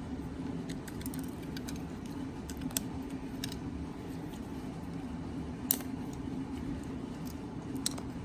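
Scattered sharp clicks and snaps of 3D-printed plastic support material being picked and pried off a printed part, over a steady low hum.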